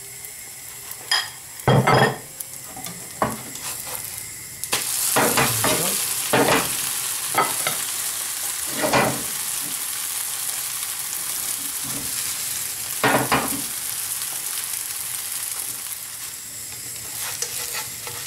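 Oat cake frying in olive oil in a frying pan. It sizzles steadily from about five seconds in, once it has been turned over, with sharp knocks and scrapes of a spatula against the pan, the loudest of them near the start.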